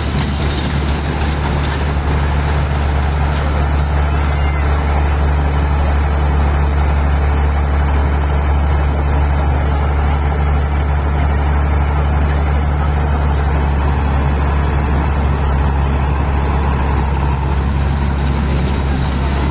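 Fairground toy train ride's engine running with a steady, loud low hum that does not change in pitch.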